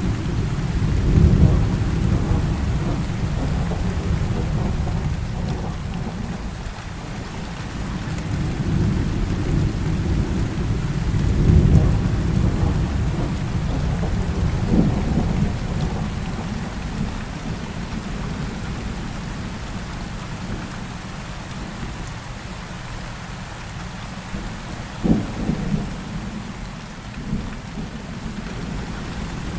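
Heavy rain falling steadily, with rolling thunder: deep rumbles swell near the start and again around the middle, and two short, sharper thunder cracks come in the second half.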